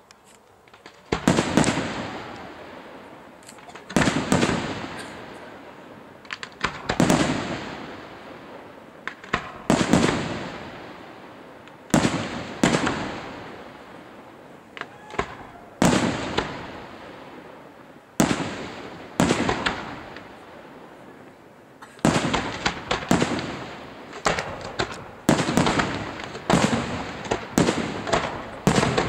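Aerial firework shells bursting one after another, each sharp bang trailing off over a second or two with crackle. About three-quarters of the way through, the bursts speed up into a rapid volley of bangs.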